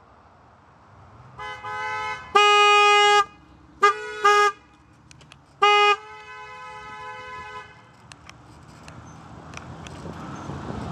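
Car horn honking: one long blast of about a second, then three short toots, with fainter horn tones just before and after.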